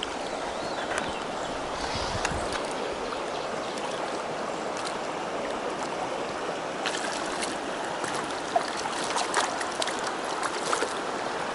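Shallow rocky stream flowing, a steady rush of water, with scattered light splashes and clicks in the second half.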